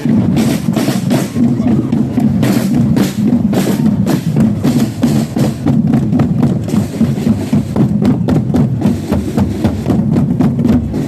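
Marching drums of a procession band beating, bass drum among them, over the chatter of a crowd.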